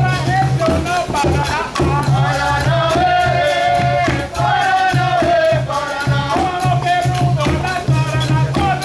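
Live capoeira roda music: a group singing over the steady beat of tall atabaque hand drums, with a rattling shaker.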